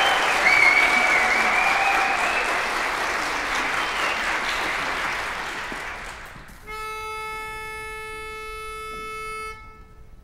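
Audience applause dying away, then a pitch pipe sounds one steady reed note for about three seconds, giving the chorus its starting pitch for the next song.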